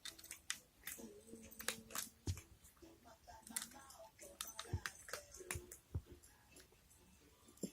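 A cat crunching dry kibble, with irregular sharp crunches several times a second.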